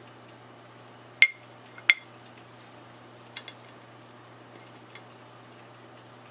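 Two sharp clinks of hard objects about two-thirds of a second apart, then a fainter double click about three and a half seconds in, over a steady low hum.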